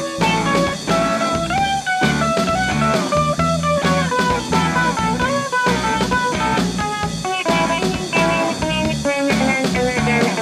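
A live rock band playing an instrumental passage with no singing: electric guitars and electric bass over a steady drum beat, with a guitar melody moving in short steps.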